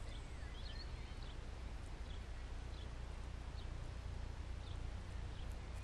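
Quiet field ambience: a steady low wind rumble on the microphone with scattered short bird chirps.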